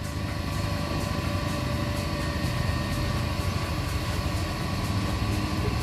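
A small boat engine running steadily at low speed: an even low rumble with a faint steady whine above it.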